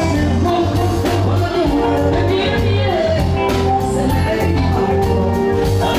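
Live band playing an upbeat song with a singer, a pulsing bass line and drums.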